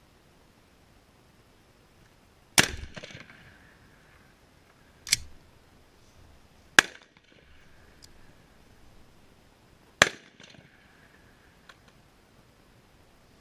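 .300 Blackout rifle with an AAC suppressor fired four times at uneven intervals, each shot a sharp crack with a short echo after it; the second shot is quieter than the others.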